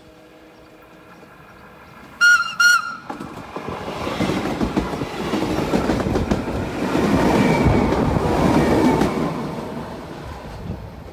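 TRAVYS regional electric train sounding two short horn blasts as it approaches, then passing close by with wheel and rail noise that builds, peaks and fades.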